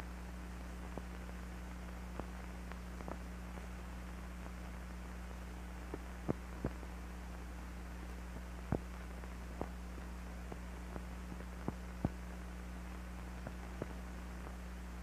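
Steady low hum with irregular clicks and pops, about a dozen scattered through: the blank soundtrack of an old film print, its hum and crackle with no narration or music.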